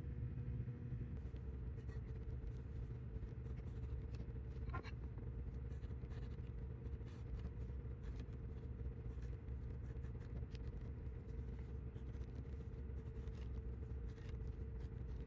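Steady electrical or machine hum with a faint higher tone, and faint scattered scratching and clicking of small repair tools on a phone screen.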